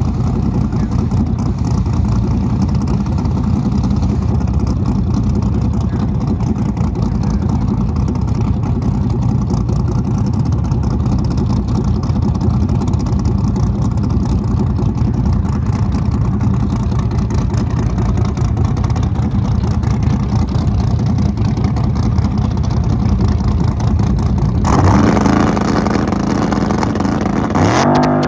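Drag race car engines running with a loud, steady low rumble. About 25 seconds in the sound jumps louder and brighter, and near the end an engine revs up in a rising climb, as at a launch.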